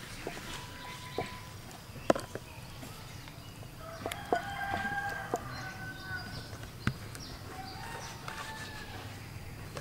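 A rooster crowing, one long call about four seconds in and a fainter one near the end. A few sharp clicks and knocks come from meat pieces being set into the bowl.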